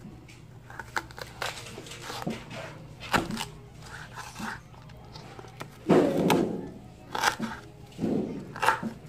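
Kitchen knife slicing a ginger root on a plastic cutting board: irregular sharp knocks of the blade meeting the board, roughly one a second. There are two louder, fuller thumps, one about six seconds in and one about eight seconds in.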